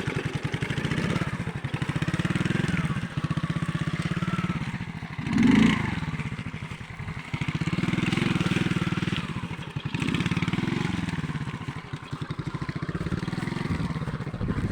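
Alpha moped's small single-cylinder four-stroke engine running under way, its revs rising and falling several times with the throttle, with a brief louder surge about five and a half seconds in.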